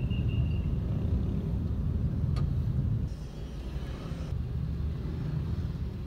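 Low, steady rumble of city traffic heard from inside a car, with a short high whistle tone right at the start and a single click a little over two seconds in; the rumble drops slightly about three seconds in.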